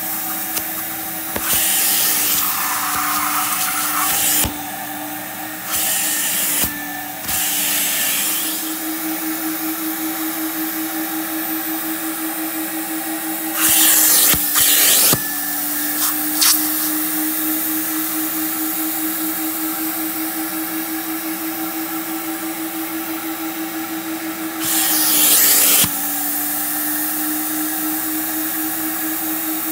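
Carpet-cleaning extractor's suction motor running with a steady whine as its clear upholstery hand tool works a fabric couch. The whine shifts slightly in pitch, and several loud hissing bursts of about a second each break in, the longest near the middle and one near the end.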